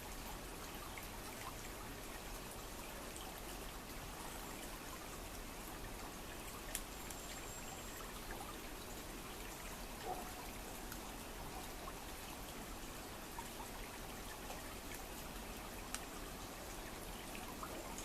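River water running and trickling steadily, with a few faint sharp clicks.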